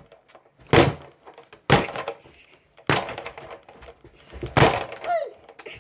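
Fists punching a hand-held speed bag: four hard thuds at uneven intervals, each followed by a short ring in the small room.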